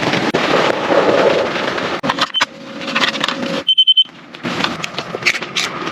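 Dense pattering and crackling, typical of heavy rain drumming on a tent or tarp, broken about four seconds in by a quick run of four or so short, high electronic beeps before the pattering resumes.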